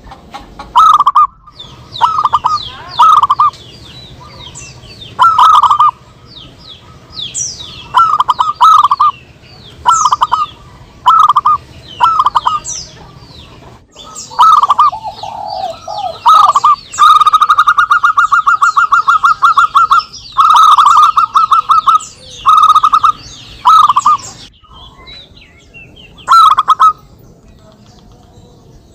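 Zebra doves (perkutut) cooing back and forth: short rolling coos repeated about once a second, with a longer trilled coo from about 17 to 20 seconds in. Higher, quicker chirps run over them.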